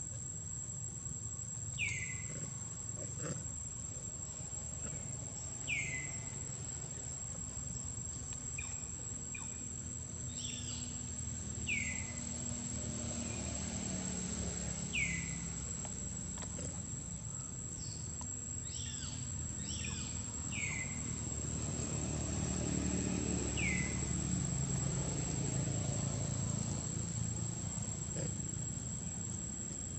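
Steady high insect drone of cicadas or crickets, with short falling calls every few seconds and a low rumble swelling in the second half.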